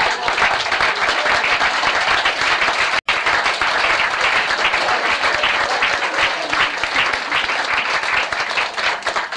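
Audience applauding steadily, many hands clapping together, with a split-second dropout in the sound about three seconds in.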